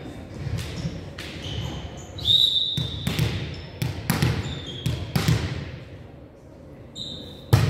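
Indoor basketball play: a ball bouncing and thudding on the court floor about eight times at uneven intervals, with short high sneaker squeaks on the floor, over a low murmur of background voices.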